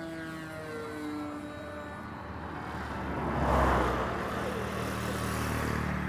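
Engine of a radio-controlled model airplane flying overhead through a barrel roll, its pitch sliding down over the first second or so, then a swell of rushing noise a little past halfway.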